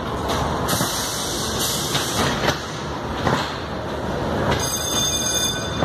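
Ghost train ride car rumbling and clattering along its track, with repeated sharp knocks as it goes. A few high steady tones sound for about a second near the end.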